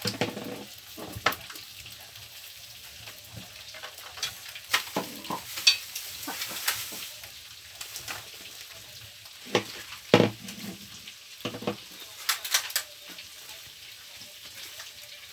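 Fluffy slime of white glue and shaving cream being stirred and kneaded: irregular wet, sticky clicks and crackles, the mix still sticky and waiting on more glycerin.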